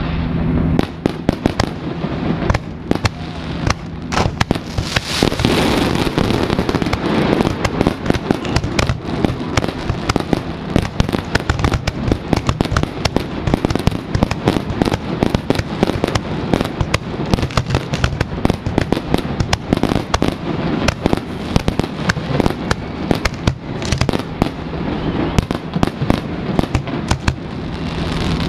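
Fireworks display going off in a dense, continuous barrage of bangs and crackling, heaviest about five seconds in.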